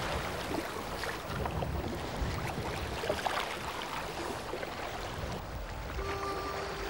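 Wind rumbling on the microphone over the wash of lake water around a canoe, with scattered small knocks. Near the end a few held musical notes begin.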